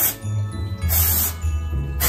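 Short hisses of an aerosol dry shampoo spray, one ending just after the start and another beginning at the very end, over background music with a bass line.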